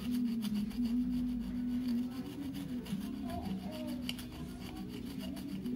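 Screwdriver tip scraping carbon deposits off an aluminium scooter piston crown in quick, short rasping strokes. A low hum runs underneath.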